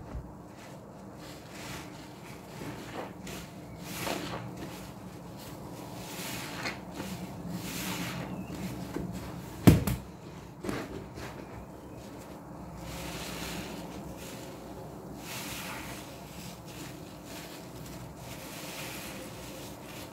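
Foam-soaked sponges squelching and squishing as they are squeezed by hand in a plastic tub of thick laundry-liquid suds, in irregular wet swishes. A single sharp knock about halfway through is the loudest sound.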